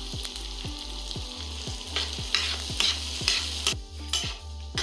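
Chopped onion and green chillies sizzling in hot mustard oil in a stainless steel frying pan, stirred with a spatula, with several brighter scraping strokes in the second half.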